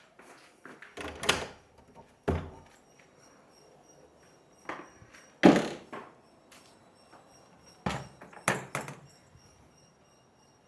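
Several scattered knocks and thumps, the loudest about halfway through, with a faint steady high whine behind them.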